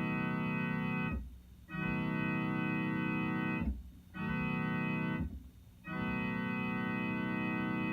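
Electronic keyboard playing a steady organ-like chord that imitates a Nathan C-5A-CWP train horn, sounded in blasts. A blast already sounding stops about a second in, then come a longer blast, a short one, and a long blast that begins near the end: the long-long-short-long grade-crossing signal.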